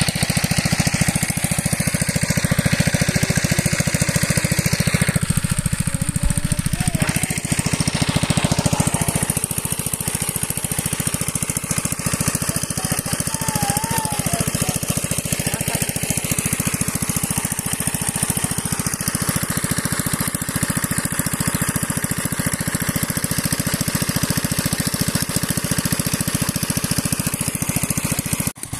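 Single-cylinder diesel engine of a shallow-machine pump running steadily under load, chugging with a fast even beat while it pumps water out of a pond.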